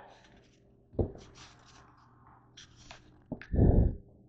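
Handling noises: a knock about a second in, then a plastic bag rustling as a hand rummages through containers inside it, and a heavy dull thump near the end.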